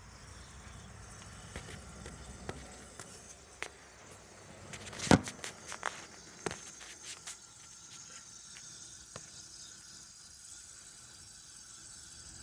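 Irregular sharp clicks and ticks from a 2015 Honda Civic with its engine off, spaced unevenly over a few seconds, one much louder click about five seconds in.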